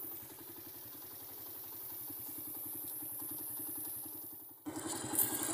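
Motorcycle engine running steadily at low speed, with an even low pulsing. Near the end the sound cuts off abruptly and comes back louder.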